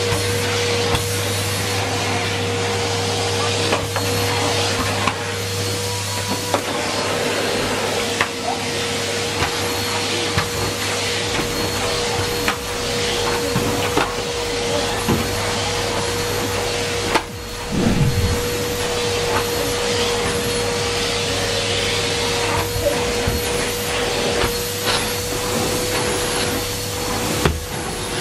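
Numatic Henry Pet cylinder vacuum cleaner running steadily, its noise carrying a constant motor hum, with scattered clicks and knocks. About 17 seconds in the sound briefly drops with a heavier thump.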